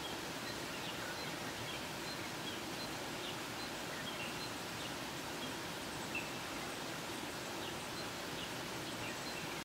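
Steady outdoor ambience with faint, scattered short bird chirps.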